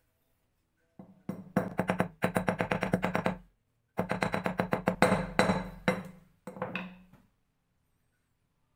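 Rapid light hammer taps on a steel block, each strike ringing, in two runs of about ten taps a second: peening the rivet of a chainmail ring closed.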